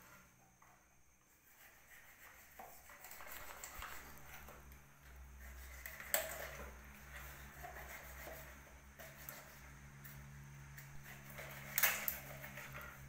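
Knife cutting and scraping along a softshell turtle's shell as it is opened on a wooden board, with two sharp knocks, one about six seconds in and one near the end.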